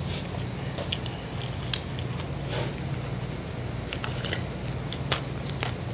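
Close-miked eating: chewing with short wet mouth clicks, then sips of broth from a cup of cold Busan-style wheat noodles (milmyeon).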